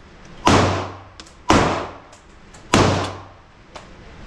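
Three pistol shots, about a second apart, each a sharp crack that rings out briefly, with a few lighter ticks in between.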